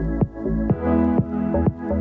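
Electronic dance music with a steady kick-drum beat, about two beats a second, over sustained synth chords and bass.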